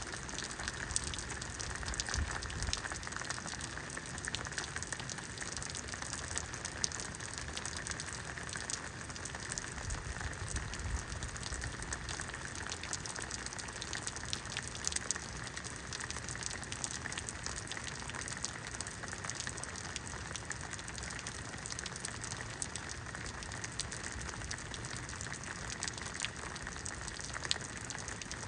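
Steady rain from a rainstorm: a dense patter of drops with a few sharper, louder drop hits scattered through it.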